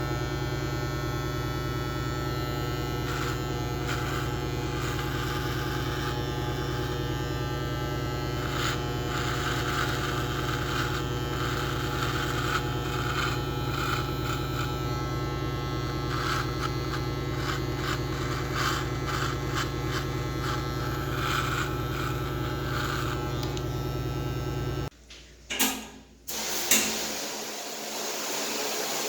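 Steady mechanical buzz with a low hum, like a small motor running. It cuts off abruptly about 25 seconds in, with a couple of knocks, and gives way to a steady hissing rush.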